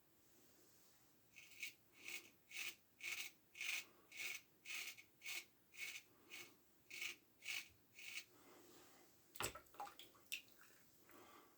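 1907 Ever-Ready single-edge safety razor scraping through lathered stubble in short strokes, about two a second. A single sharp knock about three-quarters of the way through.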